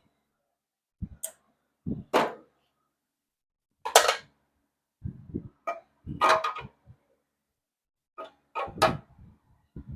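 Metal hand tools clinking and clattering in short, separate bursts a second or two apart, as a 10 mm wrench is hunted for among other tools.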